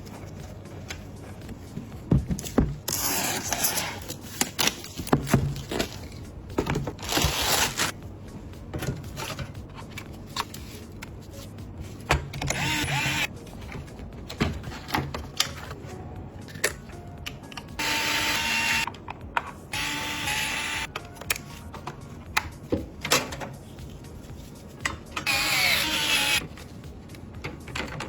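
Computer parts being handled and fitted during a PC build: irregular clicks, knocks and scraping of plastic and metal components, with short noisy bursts every few seconds.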